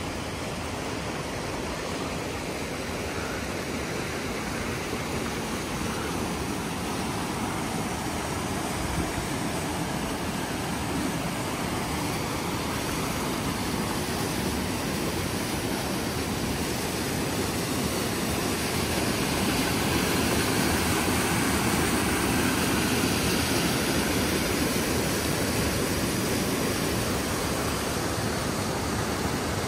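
Steady rushing of a waterfall's cascading water, getting a little louder about two-thirds of the way in.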